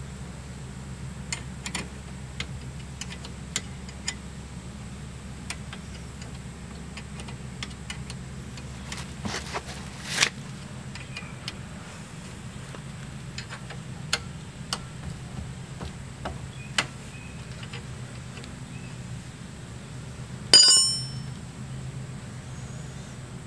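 Scattered clicks and clinks of hand tools on the Jeep's brake parts over a steady low hum. Near the end, one sharp metallic clang that rings briefly like a bell.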